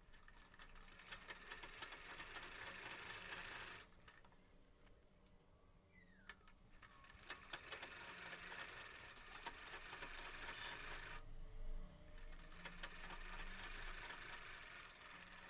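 Black domestic sewing machine stitching a fabric facing strip, faint, in two stretches with a pause of about three seconds between them.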